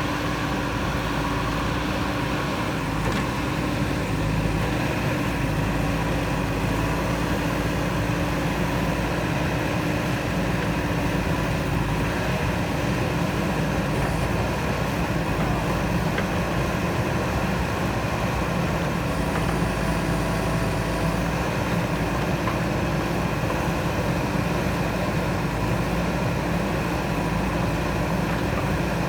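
JCB 3DX backhoe loader's diesel engine running steadily under work.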